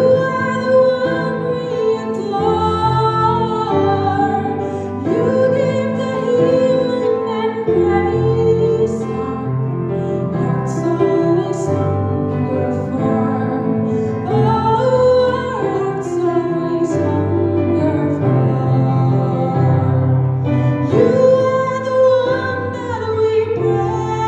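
A woman singing solo into a microphone over instrumental accompaniment, with long held notes.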